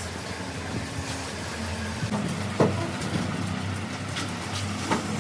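Steady low hum of a running engine or motor, with a couple of short sharp clicks, one about halfway through and one near the end.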